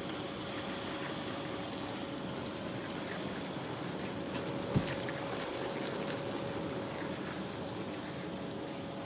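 AEG dishwasher running its wash cycle: water spraying and splashing inside the tub over a steady motor hum, with a single knock about five seconds in.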